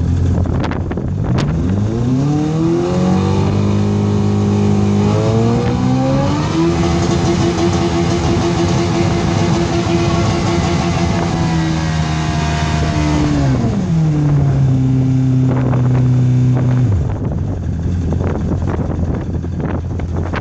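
Evinrude 115 hp two-stroke V4 outboard motor, warmed up, revved from idle in two steps and held at higher revs for several seconds. It is then brought down in stages and drops back to idle about 17 seconds in.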